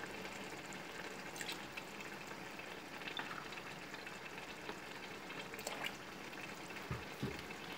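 Faint bubbling of thick zucchini adjika simmering in a large aluminium pot, with vinegar trickling from a plastic bottle into a small glass and a few light clicks.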